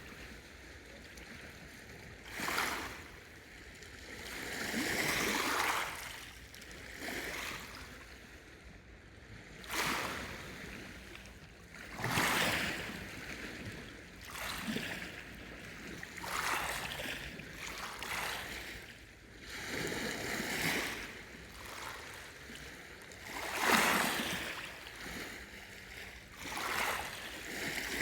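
Lake waves washing ashore in uneven surges every two to three seconds, each rising to a hiss and falling away.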